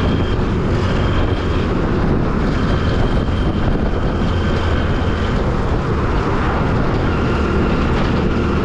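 Motorcycle on the move, its engine running steadily under loud wind rush on the microphone.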